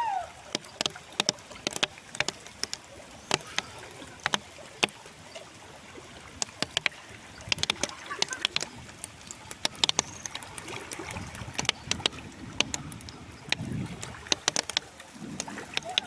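Rain falling hard, with many separate drops striking close by as sharp, irregular ticks over a steady hiss.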